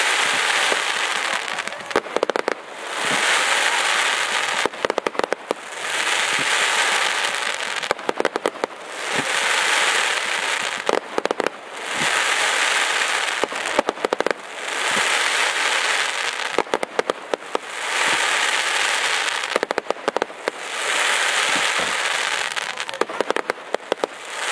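Fireworks going off in a repeating cycle about every three seconds: a rising hiss holds for a second or two, then breaks into a quick burst of crackling pops.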